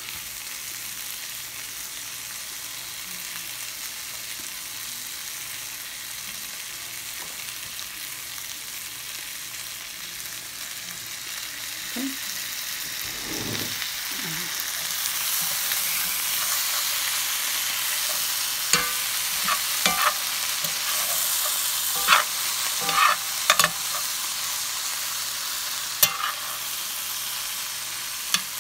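Leeks, garbanzo beans and canned salmon sizzling as they fry in a cast iron skillet. The sizzle grows louder about halfway through. A metal spoon clinks and scrapes against the pan several times in the second half as the food is stirred.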